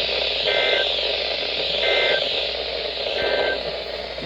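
Weather radio sending the Emergency Alert System end-of-message data bursts: three short two-tone digital chirps about 1.4 seconds apart. They mark the close of the severe thunderstorm warning, and a steady static hiss runs underneath.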